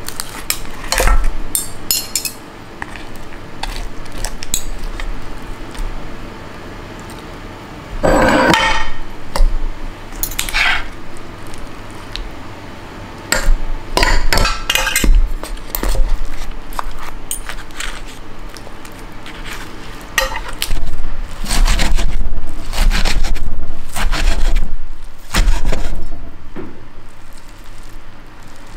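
Kitchenware being handled during food prep: dishes, containers and utensils clinking and knocking at an irregular pace, with one longer, louder clatter about eight seconds in.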